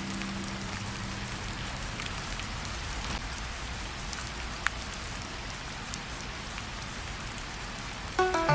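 Steady rain falling on a surface, an even hiss with scattered single drops ticking and one sharper drop about halfway through. Soft held music notes fade out at the start and new notes come in near the end.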